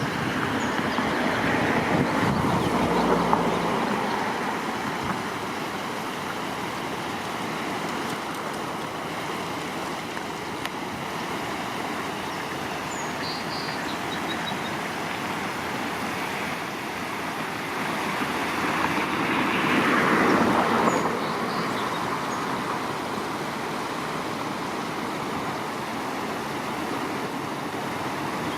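Steady rush of road traffic, with two passing vehicles swelling up and fading away over a few seconds, near the start and again past the middle. A few faint bird chirps sound in between.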